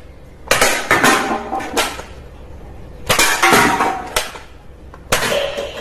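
Plastic toy gun clattering and clicking: a few quick sharp clicks in the first two seconds, then a longer noisy burst about three seconds in and another near the end.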